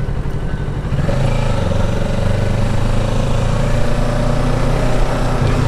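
2023 Kawasaki Ninja 650's parallel-twin engine running under way, picking up in pitch about a second in and then holding steady.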